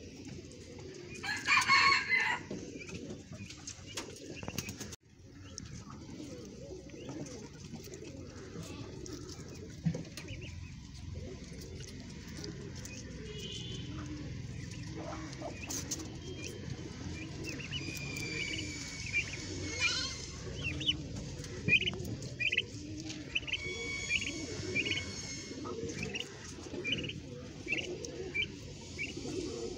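Guinea pigs chewing cucumber slices, with many short crunching clicks and thin high squeaks and chirps through the second half. About two seconds in there is one short, loud, high-pitched call.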